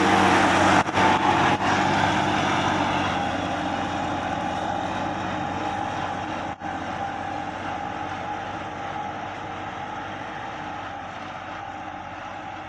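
Deutz-Fahr 5070 D tractor engine running steadily while ploughing, growing gradually fainter as it moves away. The sound cuts out briefly a few times about a second in and once midway.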